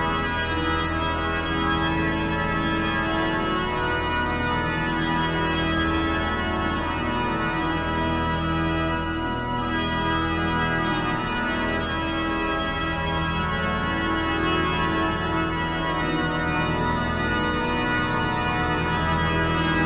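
Church organ playing the closing voluntary after the Mass: full chords held for seconds at a time over deep bass notes, at a steady loudness.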